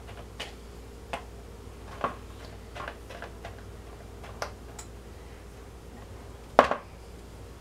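Light taps and scrapes of a kitchen utensil against a plastic mixing bowl as pudding filling is plopped in and smoothed over a layer of vanilla wafers, with a louder knock about two-thirds of the way through.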